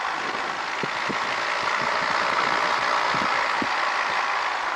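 Cessna 150's Continental O-200 four-cylinder engine and propeller running at low power while taxiing, heard from inside the cabin as a steady drone that swells slightly in the middle, with a few light knocks.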